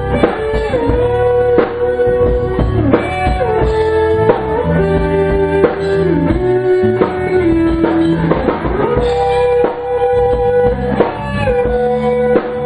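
A small rock band jamming on electric guitars with a drum kit. A lead guitar holds sustained notes and slides between them, over steady drum hits.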